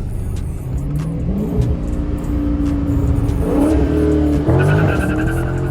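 Dodge Charger 392 Scat Pack's 6.4-litre HEMI V8 accelerating in sport mode. The engine note climbs about a second in, holds, and rises again in the last two seconds as the car pulls through the revs.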